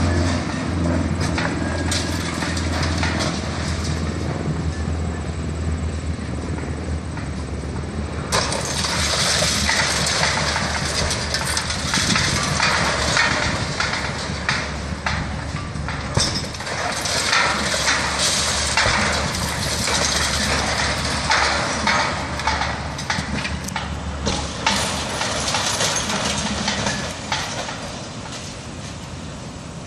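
Demolition crane's diesel engine running with a steady low hum. About eight seconds in, a long clattering crash of brick and concrete rubble begins as the wrecking ball breaks into the wall. It is full of sharp knocks and cracks, carries on for some twenty seconds and then eases off near the end.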